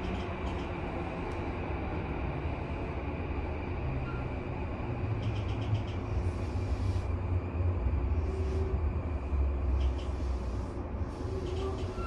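Interior running noise of a JR East E235-series commuter train: a steady low rumble with some faint clicks, swelling slightly in loudness about two-thirds of the way through.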